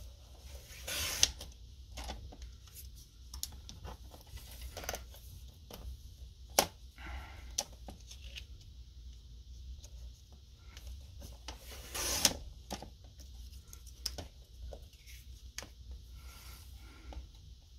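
Fiskars paper trimmer cutting watercolor paper: two short swishes of the sliding blade, about a second in and again about twelve seconds in. Between them come scattered clicks and rustles as the paper is shifted and turned on the trimmer.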